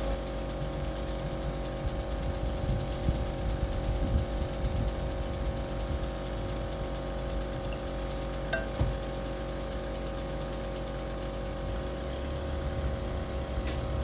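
Beef steaks sizzling steadily on a charcoal grill, over a steady low hum, with a single sharp click about eight and a half seconds in.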